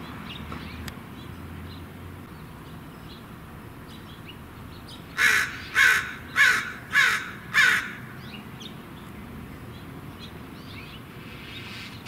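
A crow cawing five times in a quick, even series, the caws about half a second apart and loud over the quiet outdoor background.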